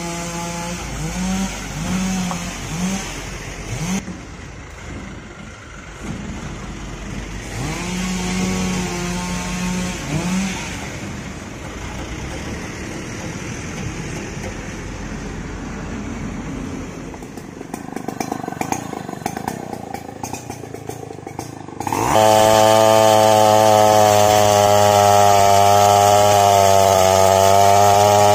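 Motorcycle engines revving and passing, their pitch rising and falling. About three-quarters of the way through, a chainsaw comes in suddenly, loud and steady at full throttle as it cuts into a large mahogany trunk.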